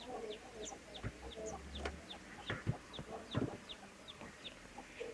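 An axe knocking into a log as firewood is split: a few separate knocks, the sharpest about three and a half seconds in. A short high chirp repeats steadily, about three times a second.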